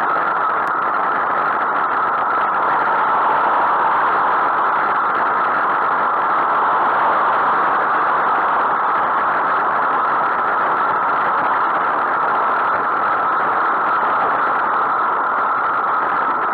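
Steady rushing wind and road noise on the microphone of a bicycle-mounted camera while riding along a main road, even and unbroken throughout.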